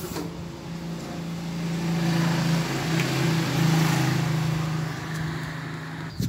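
A vehicle engine running nearby with a steady low hum, growing louder through the middle and easing off near the end.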